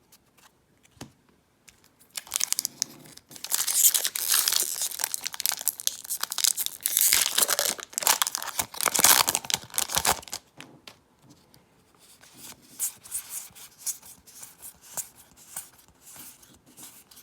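A Magic: The Gathering booster pack's crinkly wrapper being torn open and crumpled, loud for several seconds, followed by fainter rustles and clicks as the cards are handled.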